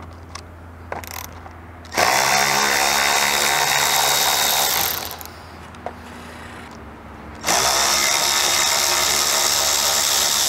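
A power driver spinning a Torx socket on an extension runs twice for about three seconds each, backing out two T20 bolts. Each run is a steady motor whine, starting after a few light clicks of the socket being set on the bolt.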